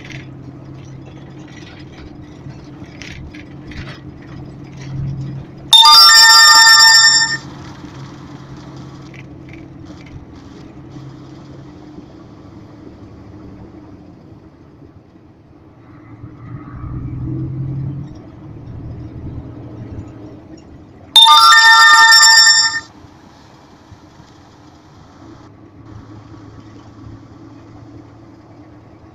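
Vehicle engine and road noise heard from inside the cabin as it drives up a ramp, broken twice by a loud, ringing electronic alert tone, each about a second and a half long and about fifteen seconds apart.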